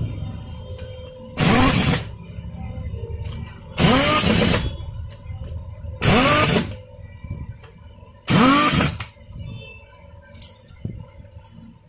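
A power driver tightens the scooter's gearbox cover bolts one after another: four short bursts about two seconds apart, each rising and then falling in pitch.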